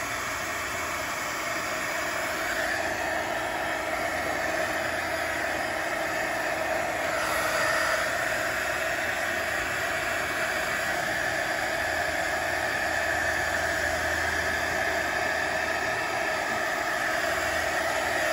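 Steady whirring hiss of a corded handheld hot-wire foam cutter running while its heated wire loop melts and smooths the edge of a foam skull.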